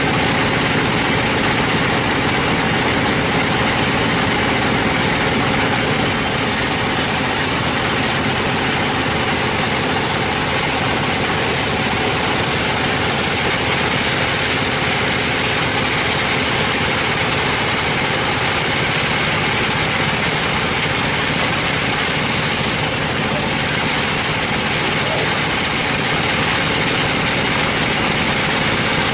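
Sawmill machinery running: a steady, loud mechanical drone that holds the same pitch and level throughout.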